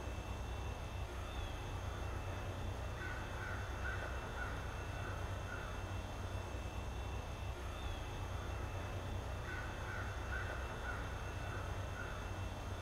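Bird calls: a short run of caws, heard twice about six seconds apart, over a steady low hum.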